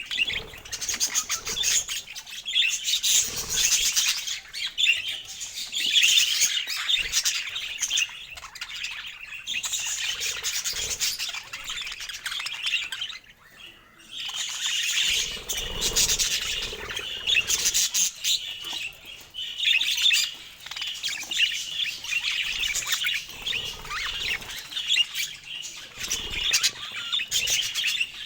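Pet budgerigars chirping and chattering in a fast, continuous stream of high twitters, with a brief lull about halfway through.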